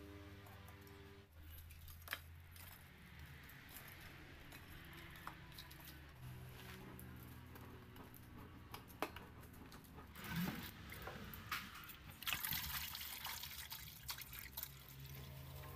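Water pouring from a large plastic drinking-water bottle into an aluminium pot, a splashing trickle that starts about three quarters of the way in and is the loudest sound. Before it, only a few scattered clicks over faint background music.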